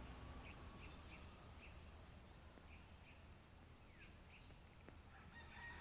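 Near silence: faint outdoor ambience with a low steady rumble and soft short chirps repeating a few times a second.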